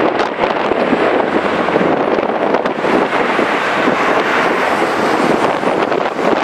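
Airbus A330-300 twin jet engines at takeoff thrust as the airliner accelerates down the runway: a loud, steady rushing noise.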